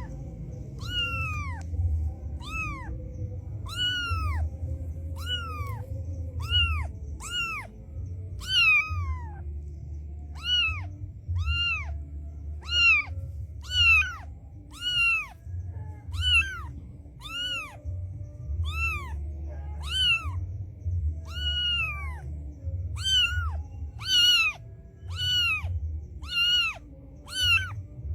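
Cat meowing over and over, about one short meow a second, each one rising and then falling in pitch, over a steady low rumble.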